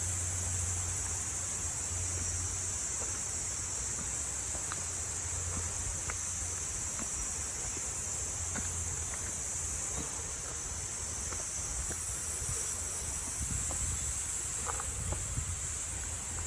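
Steady high-pitched insect chorus, with a low rumble underneath and scattered faint ticks.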